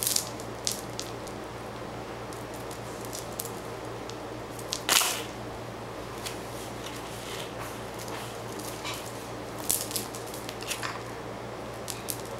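Small clicks and rattles of a toddler's hands working a plastic beaded necklace, with one louder clatter about five seconds in, over a steady low hum.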